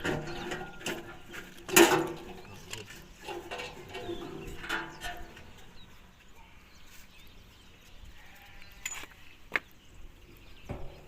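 An animal bleating a few times, with a sharp knock about two seconds in and a couple of clicks near the end.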